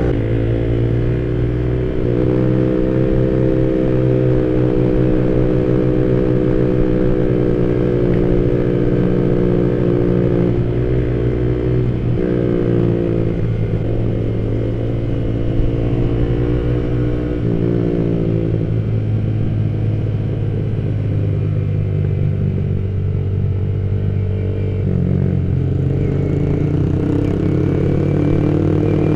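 Yamaha Vixion R's single-cylinder engine running under way, heard from the rider's seat. Its pitch shifts up and down several times as the speed changes.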